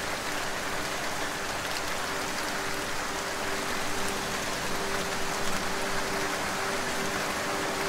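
Steady rain falling, an even hiss. About halfway through, a soft held musical tone comes in low underneath it.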